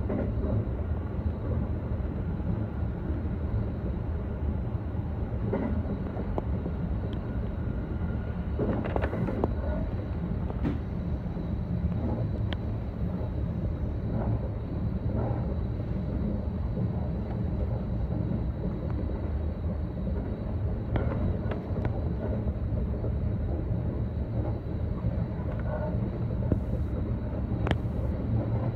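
JR West 321 series electric train running, heard from the driver's cab: a steady low rumble of wheels on rail, with scattered clicks and knocks.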